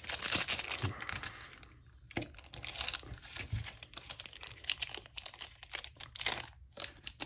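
A wrapped trading-card pack being opened and handled: irregular crinkling and tearing of the wrapper, with light clicks and rustles as the stack of cards is pulled out. The rustling comes in several bouts with short pauses between them.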